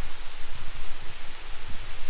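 Steady outdoor rushing noise of falling water from a small roadside waterfall, mixed with wind gusting on the microphone.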